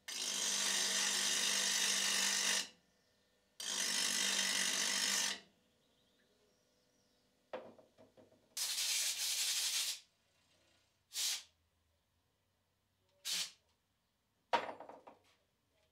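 A steel meat grinder blade pressed against a running bench grinder wheel in two passes of about two seconds each, metal grinding on the stone. Later come three hisses of compressed air from a blow gun, one longer and two short, and a sharp click near the end.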